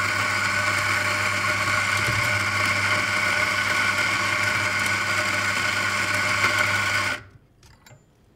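Eureka Mignon flat-burr espresso grinder running steadily, grinding a double dose of coffee beans into a portafilter, then stopping abruptly about seven seconds in.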